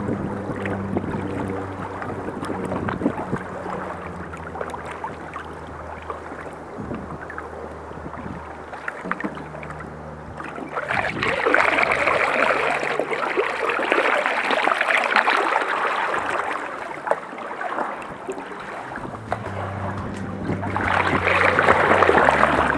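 Canoe paddles splashing and river water rushing along the hull. The rushing grows louder about eleven seconds in and again near the end, over a low steady hum.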